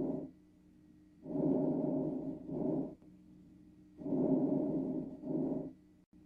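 Recorded chest breath sounds: a longer noisy breath of about a second followed, after a brief gap, by a shorter one, repeating about every three seconds.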